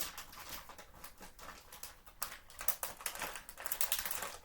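Plastic candy packaging being handled: irregular crinkling and small clicks, busiest in the second half.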